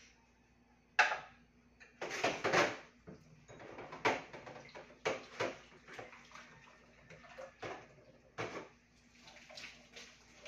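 Dishes being washed by hand at a kitchen sink: water runs from the tap in short spurts, and dishes and utensils knock and clatter. The loudest clank comes about a second in.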